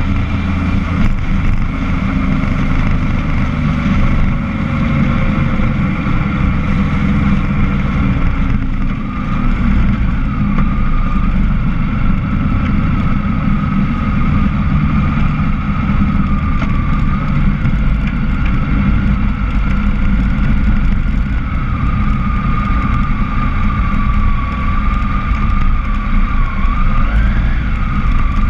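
A motor vehicle's engine running along a road, heard through a camera mounted on the vehicle, with heavy low rumble from road and wind. The engine note falls over the first several seconds, then holds fairly steady with a wavering whine.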